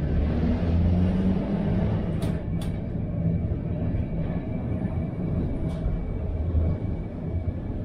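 A 1942 vintage tram running on its rails, heard from inside the driver's cab: a steady rumble of wheels and motor with a low hum. Three brief high ticks come about two, two and a half, and six seconds in.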